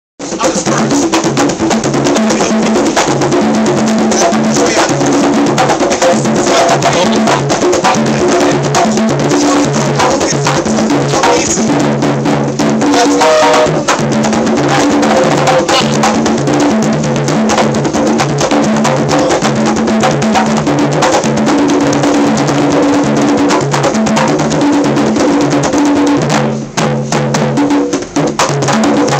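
Several conga drums played by hand together in a continuous, dense interlocking rhythm, with low ringing tones under sharp hand strikes; the playing thins briefly near the end.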